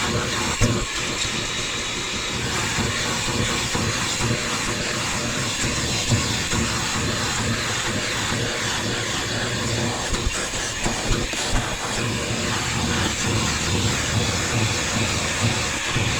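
Hyper Tough vacuum cleaner running steadily, its nozzle drawn over car carpet, with a few brief knocks along the way.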